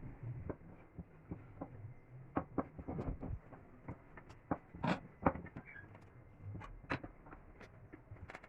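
Scattered light clicks and knocks at irregular intervals, a few louder ones in the middle, over a faint low background hum.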